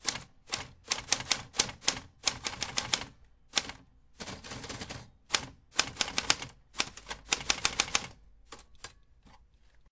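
Typewriter sound effect: rapid runs of key clacks with short pauses, keeping pace with text being typed out, thinning to a few scattered clicks and stopping near the end.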